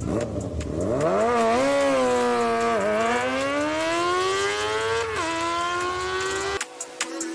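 Sport motorcycle engine accelerating hard, its pitch climbing through the gears with upshifts about three and five seconds in. The sound cuts off suddenly near the end.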